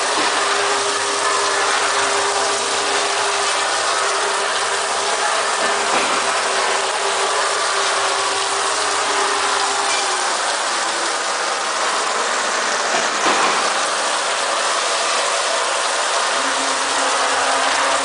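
A 30-nozzle rotary bottle and cup washing machine running: water spray hissing steadily over the cups as the table turns, with a mechanical rattle from the machine.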